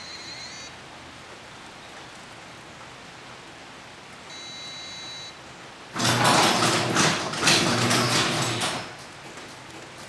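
Two electronic beeps from a fingerprint-scanner unit, a short one at the start and a longer one about four seconds in. About six seconds in, a garage door opener starts and the door rattles along its track for about three seconds, the loudest sound here, before dropping away.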